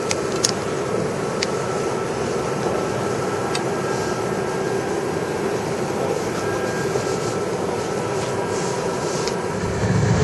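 Steady hum of a large indoor hall's ambience, with a few light clicks in the first few seconds.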